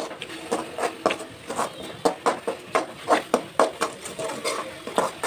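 Metal spatula stirring and scraping a thick tomato-onion masala around a metal kadai, in quick repeated strokes about three a second.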